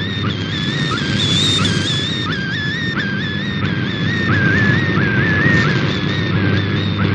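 Shortwave digital picture transmission received on a portable radio: a single warbling data tone that steps and glides up and down in short repeated strokes as an image is sent line by line. Behind it are static hiss and a steady low hum from local interference.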